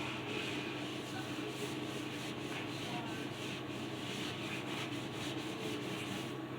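Hand scrubbing a wall with a Pine-Sol and hot-water cleaning solution: quick, repeated back-and-forth rubbing strokes, a few per second, that go on without a break.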